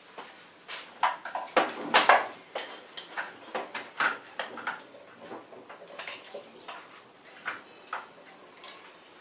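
Hand working soft cubes of margarine in a glazed earthenware dish: irregular short knocks, taps and squishes against the glaze, the loudest cluster about two seconds in, then lighter ones.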